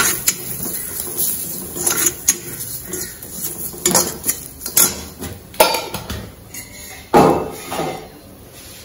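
Perforated steel ladle scraping and clinking against an iron kadai while stirring spice powder roasting in oil, in irregular strokes, with a louder clank about seven seconds in.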